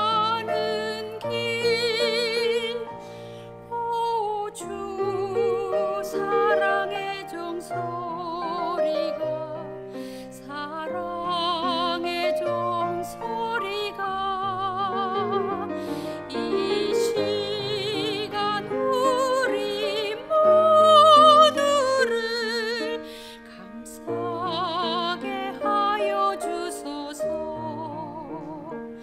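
Solo soprano singing a Korean gospel song with a wide vibrato, accompanied by piano.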